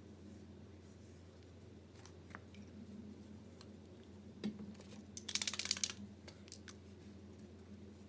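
A paint marker being shaken, its mixing ball rattling in a quick run of clicks for under a second, just after a single knock, over a low room hum.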